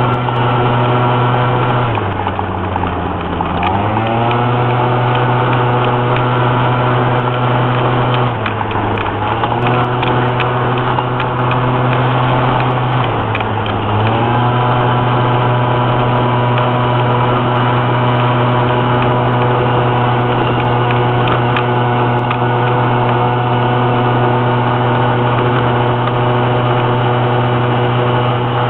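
Small vehicle's engine heard from inside the cab, running steadily under load on an uphill climb. Its pitch drops and swings back up three times, about 2, 8 and 13 seconds in, and otherwise holds an even note.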